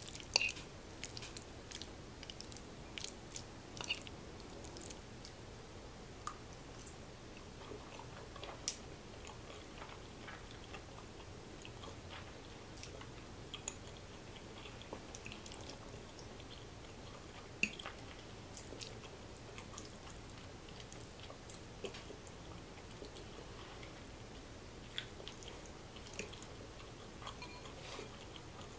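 A person chewing soft macaroni and cheese with the mouth close to the microphone. Scattered faint clicks and smacks come through, most often in the first few seconds.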